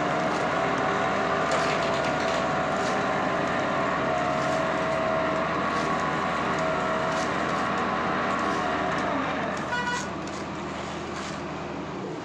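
Asphalt paver's diesel engine running steadily at work, a loud drone with a held tone in it. About ten seconds in it eases off, and a short high-pitched tone sounds.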